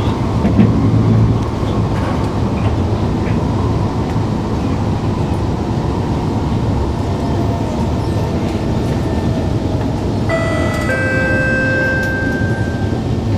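Singapore MRT train running, a steady rumble heard from inside the carriage. About ten seconds in, a two-note descending chime rings out from the train's on-board public address.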